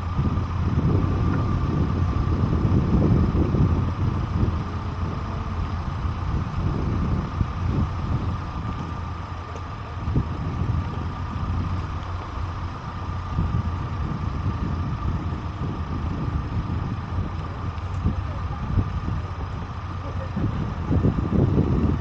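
Vehicle engine running at low speed, with a low rumble that rises and falls and a faint steady whine.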